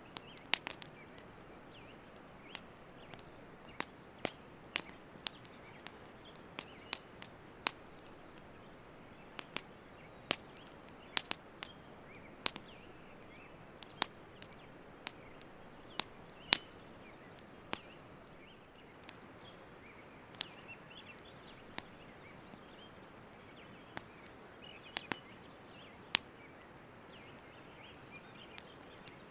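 Campfire wood crackling with sharp, irregular pops, over the steady rush of a fast-flowing river.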